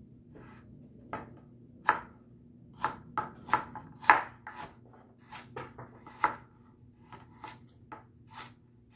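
Chef's knife slicing carrots into rounds on a plastic cutting board, each cut ending in a sharp knock on the board. The strokes come irregularly, heavier in the first half and lighter toward the end.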